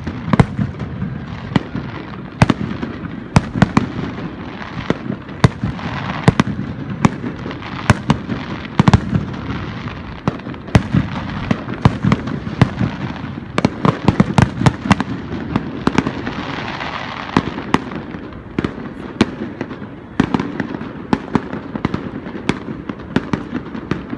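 Aerial fireworks display: many sharp bangs from bursting shells in quick, irregular succession, over a continuous noisy wash, with no let-up to the end.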